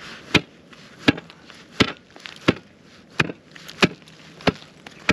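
A tool chopping into ice, about nine sharp strikes at roughly one every 0.7 seconds, with one quick double strike. This is an ice-fishing hole being broken open after snow heaped over it refroze into a hard pile.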